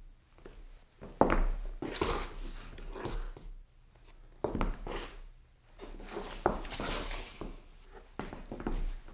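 Shoe soles stepping and scuffing on a wooden floor: irregular footfalls, each with a short scraping slide, and one longer scrape a little past the middle.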